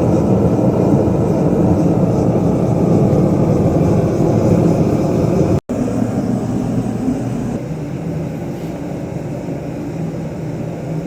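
Blacksmith's forge running: a steady rushing roar. It breaks off for an instant about halfway through, then carries on a little quieter.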